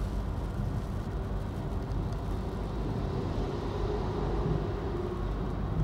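A car driving, heard from inside its cabin: a steady low rumble of engine and road noise.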